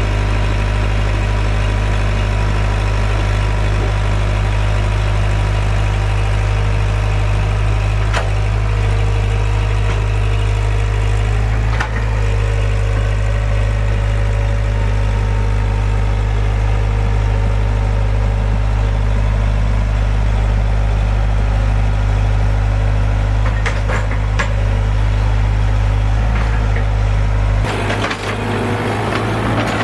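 Kobelco SK115SR excavator's diesel engine running steadily with a deep, even drone, with a few sharp knocks along the way. The drone breaks up and changes near the end.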